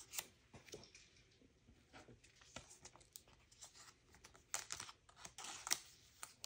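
Trading cards being handled and laid down onto a pile on a tabletop: faint scattered taps and rustles, with a louder patch of rustling from about four and a half to six seconds in.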